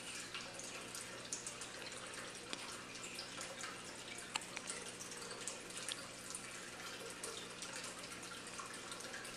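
Hiccups: small, faint clicks coming about every second and a half, over a steady hiss and a low hum.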